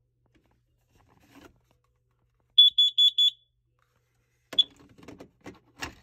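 Battery carbon monoxide alarm sounding under test: a quick burst of four high-pitched beeps about two and a half seconds in, the four-beep pattern that CO alarms use. About a second later comes one short beep, then clicking and rubbing as a hand handles the alarm.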